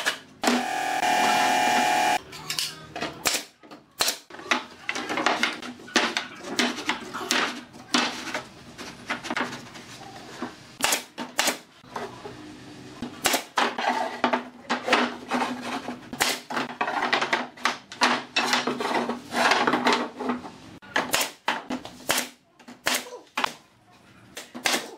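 A power drill runs for about two seconds near the start. Then comes a long, irregular series of sharp knocks and clacks: pine boards being handled, set down and fastened with a nail gun.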